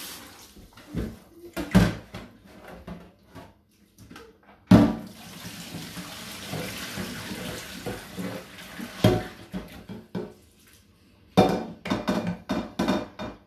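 Stainless steel cooking pot knocking against a steel kitchen sink, then rinse water pouring off spaghetti into the sink for a few seconds as the pot is tipped to drain. A quick run of metal clatters from the pot near the end.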